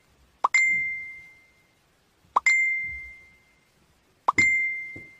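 A short rising pop followed at once by a clear, bell-like ding that rings out and fades over about a second, repeated three times about two seconds apart.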